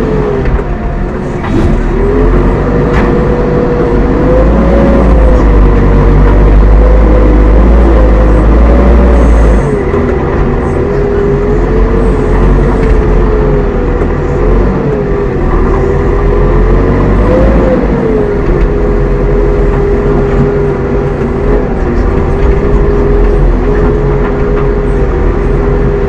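JCB 3DX backhoe loader's diesel engine running hard under hydraulic load, its pitch wavering up and down as the loader works. It is heaviest and loudest for the first several seconds, then settles a little lower.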